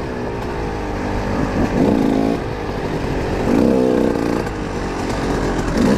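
Dirt bike engine being ridden hard, its pitch rising and falling several times as the throttle is opened and rolled off.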